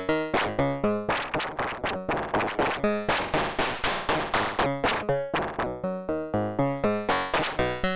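CubuSynth Engine dual analog oscillator module (3340 VCO chip) playing a sequenced run of short notes that die away quickly, about four a second. The pitch and brightness change from note to note.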